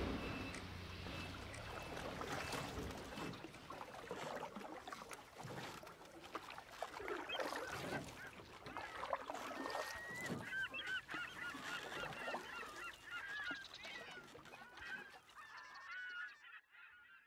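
A flock of birds calling, with many overlapping calls that grow denser about ten seconds in, then fade out near the end.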